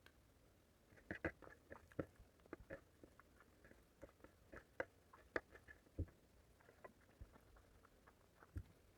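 A person chewing a mouthful of egg curry and rice close to the microphone: irregular small mouth clicks, starting about a second in.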